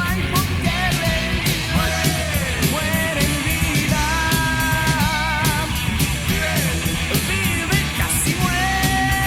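Heavy metal band playing a studio demo: a high lead line with bent notes and wavering held notes over drums and bass.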